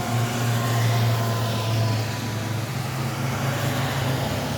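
A motor vehicle running with a steady low hum, over an even hiss of rain. Faint tones fall slowly over the first couple of seconds.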